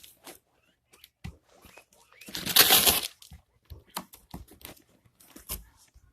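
Cardboard shipping box being worked open by hand: scattered rustles and knocks, with one loud rip lasting under a second about two and a half seconds in.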